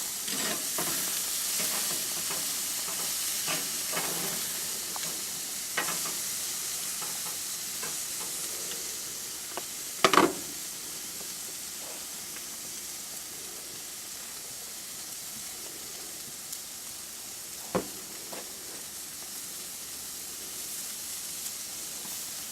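Sauced steaks sizzling on a hot grill, a steady hiss. Sharp clacks come about ten seconds in and again near eighteen seconds, the first the loudest.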